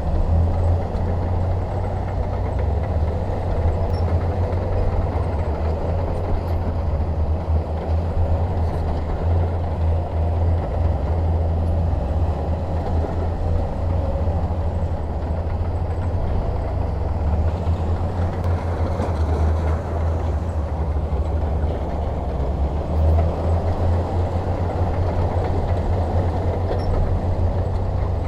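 Bulldozer's diesel engine running steadily with a deep, even rumble while the machine works pushing soil.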